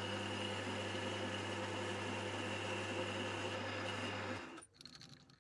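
Metal lathe running steadily with a low motor hum while taking the last finishing boring cut in an aluminium dust cap. It stops abruptly about four and a half seconds in.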